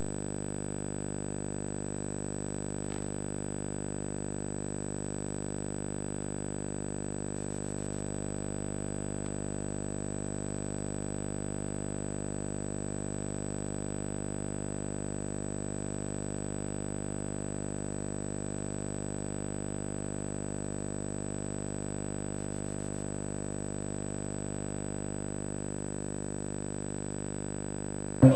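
Steady electrical hum with a thin, high-pitched whine, unchanging throughout: the background hum and whine of a silent stretch of a VHS tape's soundtrack.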